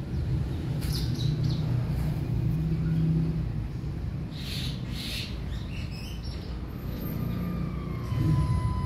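Long-haired white cat growling in a low, continuous rumble that swells and fades, the threat sound of a cat bristling for a fight. Faint bird chirps sound in the background.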